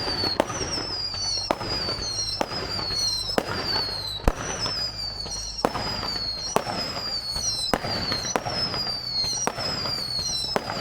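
Fireworks going off in quick succession: sharp bangs every half second to a second with crackling between them, each joined by a high whistle that falls in pitch.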